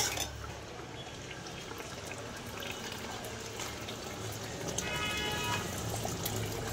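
Masala sizzling steadily in an aluminium pot while boiled mutton pieces and their cooking liquid are poured in from a plastic bowl.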